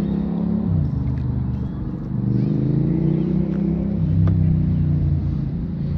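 An engine running steadily, its pitch dropping about a second in and climbing again from about two seconds as it slows and then speeds up.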